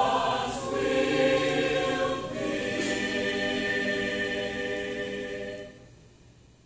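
Mixed choir of men's and women's voices singing the closing phrase of a university hymn, ending on a long held chord that is cut off just before the end, followed by a short fading echo.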